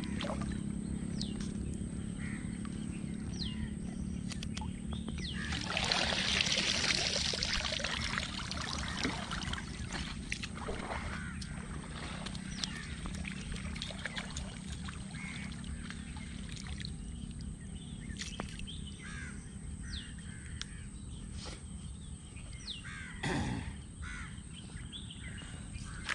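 Water splashing and streaming as a wet cast net is handled and lifted in shallow creek water, loudest a few seconds in and again briefly near the end. Birds call throughout, with crow caws among them.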